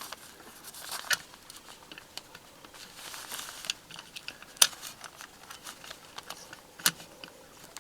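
Small metal door-lock parts being handled and fitted, with light scraping and scattered sharp clicks, the strongest a little past halfway and another near the end. The latch is being taken out of the lock body and turned around.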